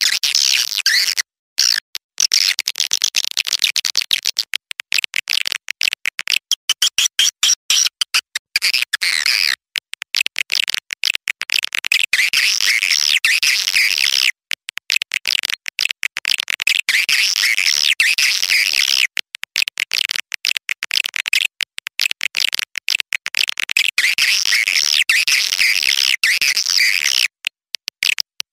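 Recorded calls of young swiftlets: dense, high-pitched chirping and twittering, broken by many short gaps, played as a lure call to draw swiftlets into a swiftlet house.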